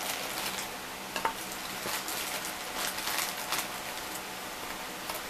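Faint kitchen handling sounds, scattered light ticks and soft rustling over a steady hiss, as cake batter flavoring is added to yam patties in a casserole dish.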